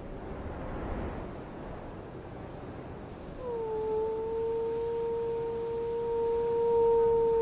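A man howling like a wolf with a hand cupped to his mouth, calling in a wolf. One long howl begins about three and a half seconds in, dips at first and then holds a steady pitch.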